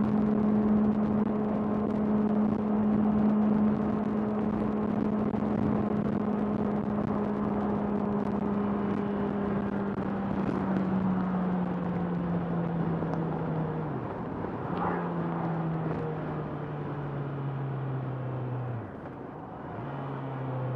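Honda CBR650R inline-four engine running under way over wind noise. Its note holds steady, then from about ten seconds in drops in pitch, with two short breaks near the end as the revs fall away.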